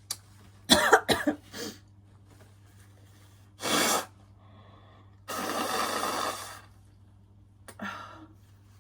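A woman hitching and sneezing from an allergy to a bubble bath's scent: a few quick catching breaths about a second in, a sudden loud sneeze near four seconds, then a long rush of breath and one more short catch near the end.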